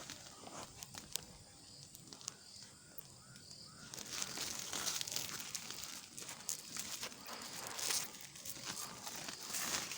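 Rustling and crackling handling noise with scattered clicks, louder and busier from about four seconds in.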